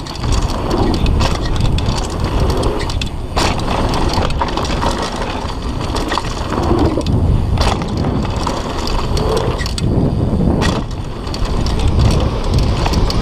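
Downhill mountain bike riding fast over a dirt trail: tyres rolling over dirt and roots, the frame and chain clattering with many sharp knocks over the bumps, under a constant low rumble of wind on the microphone.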